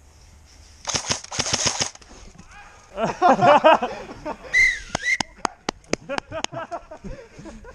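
Airsoft guns firing: a rapid full-auto burst of about a second, starting about a second in, then a string of single sharp shots about five a second a little past the middle, with loud voices between them.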